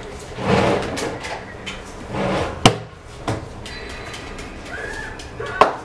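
Two sharp knocks about three seconds apart, with softer rustling and shuffling around them.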